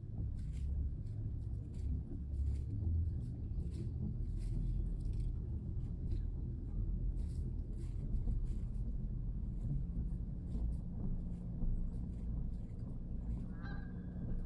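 Outdoor ambience dominated by a steady low rumble, with faint scattered rustling. A few short honking calls come in near the end.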